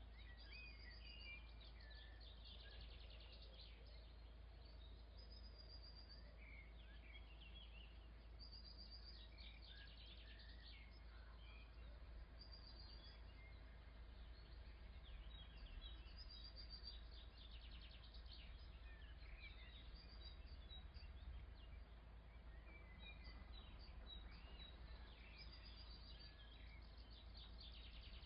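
Faint birds chirping and trilling again and again over a steady low hum; otherwise near silence.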